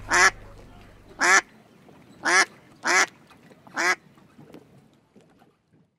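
Ducks quacking: five short, loud quacks spread over about four seconds, then quiet.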